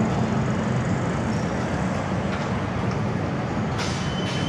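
Steady low rumble of outdoor background noise, with a couple of faint clicks and a brief thin high tone near the end.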